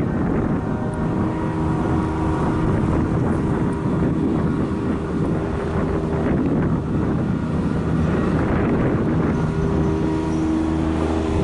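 An engine running steadily with a low drone, and wind on the microphone.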